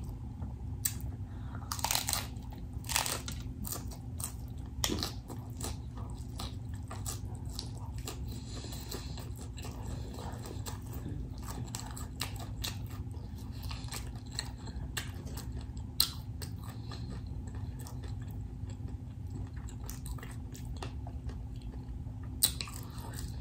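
Close-up chewing and biting of crisp corn taco shells: sharp crunches come irregularly throughout, loudest about two and three seconds in and again near sixteen seconds. A steady low hum lies underneath.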